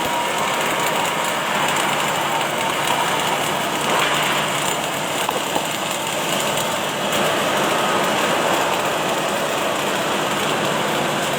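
Automatic arc welding machine running, with a steady hiss of noise.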